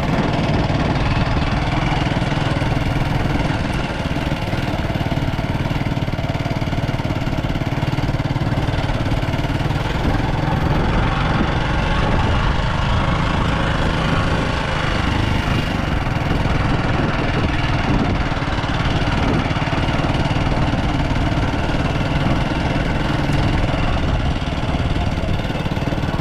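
Vehicle engine running steadily on the move, with wind and road noise.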